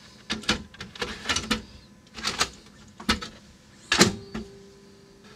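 A VHS cassette being loaded into a General Electric top-loading VCR: a run of plastic clicks and clatters as the tape is set into the raised cassette carriage, then a loud clack about four seconds in as the carriage is pushed down. A steady hum from the machine follows.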